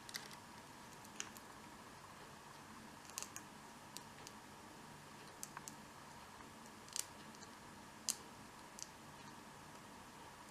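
Faint, irregular clicks of a lock pick and tension wrench working the pin tumblers of a vintage Junkunc Bros American padlock during single pin picking, about ten clicks spread out with the loudest near the middle.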